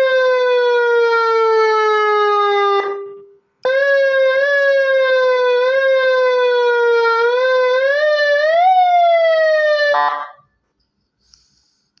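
Electronic police-style siren horn, worked from a three-button handheld mic controller, sounding a long tone that slowly falls in pitch and stops about three seconds in. After a short pause it sounds again, wavering, then rising and falling, and cuts off about ten seconds in.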